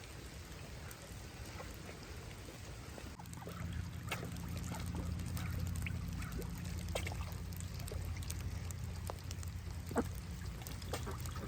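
Meltwater dripping and trickling from ice-covered branches and roofs, with scattered drips and splashes, as ducks dabble in the puddles; a low steady rumble joins in about three seconds in.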